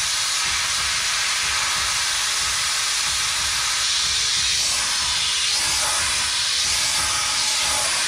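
Compressed air hissing steadily through a clip-on air chuck into the inner tube of a large rear tractor tire, inflating it to seat the tire bead on the rim.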